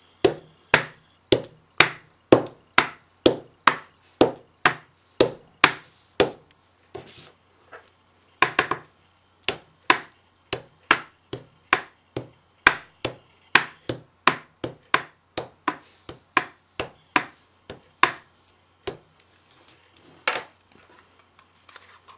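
Rubber stamps being pressed down again and again onto cardstock on a tabletop and tapped on an ink pad: a steady run of sharp taps, about two a second, with a short pause about seven seconds in and only a few taps near the end.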